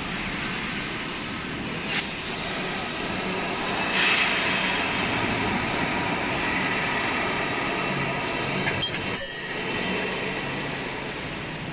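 Steady mechanical drone of workshop machinery running, with a few sharp metal clinks. The loudest is a ringing double clank about nine seconds in.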